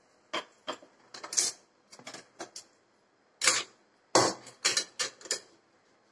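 Pan and wooden spatula clattering as fried shallots, tomato and dried chillies are tipped and scraped into a steel mixer jar: a string of sharp clacks and knocks, with a quick run of the loudest ones in the second half.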